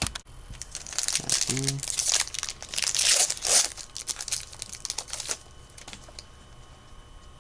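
A plastic trading-card pack wrapper crinkling and tearing as it is ripped open, in irregular crackly rustles for about four seconds, then stopping. A brief voice sound comes in about a second and a half in.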